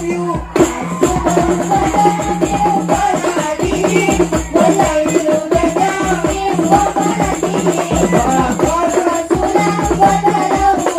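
An al-Banjari ensemble performing: a male lead vocalist sings a sholawat through a PA system over a fast, steady rhythm of hand-played frame drums.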